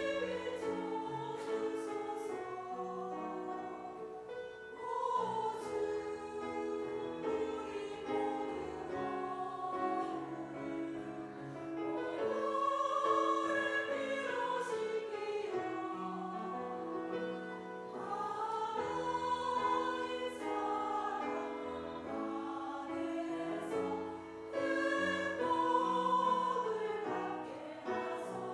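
Church choir singing an anthem in parts, holding long notes that move slowly from chord to chord.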